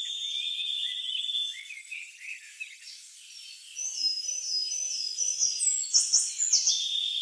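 Birds chirping over a steady high trill, like a nature-sound recording. The trill drops out about two seconds in and comes back near the end, while the chirps grow louder and busier from about four seconds in.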